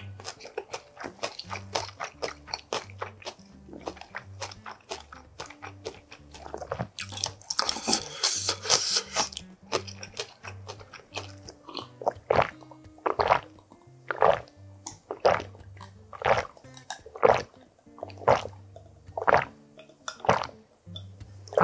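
Close-miked eating sounds over quiet background music. First there is chewing with small crunches, then a couple of seconds of slurping broth midway. In the second half comes a steady run of about nine loud gulps, roughly one a second, as water is drunk from a glass.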